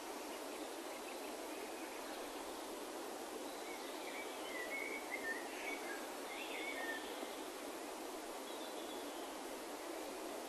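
Steady outdoor background hush, with a few faint bird chirps about halfway through.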